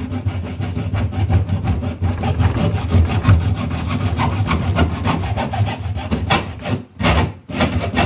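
Hacksaw cutting back and forth through a chest freezer's top trim, a steady run of rasping strokes with a short pause near the end.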